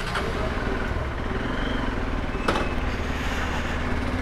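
Motorcycle engine running steadily at low speed as the bike rolls off, with a short click about two and a half seconds in.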